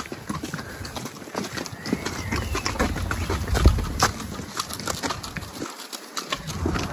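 Ponies walking: irregular hoof knocks and thuds with rustling, and a low rumble about halfway through.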